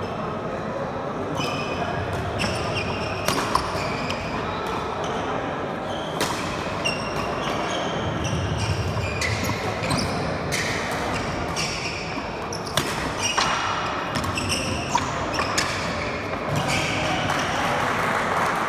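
Badminton rally: rackets striking the shuttlecock in sharp, irregular cracks, with sneakers squeaking on the wooden court floor, echoing in a large hall. Players and onlookers talk underneath.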